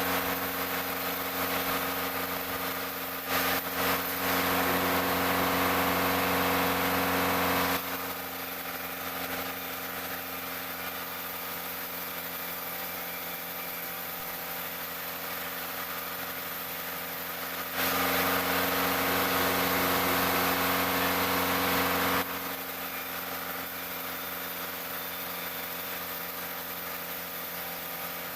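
Sawmill saw machinery running steadily with a constant hum of tones. Twice, a few seconds in and again about two-thirds of the way through, a louder rushing noise rises over it for about four seconds, as the blade cuts through teak timber.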